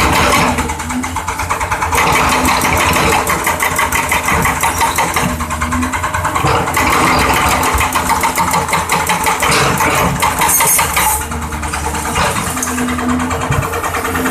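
Excavator-mounted hydraulic breaker hammering concrete in rapid repeated blows. It runs in stretches of several seconds with short pauses, over the excavator's steady diesel engine.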